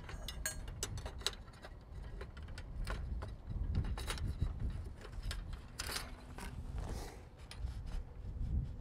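Aluminium furler foil extrusions clicking and knocking against each other as they are handled and fitted together, over a low rumble that swells a couple of times.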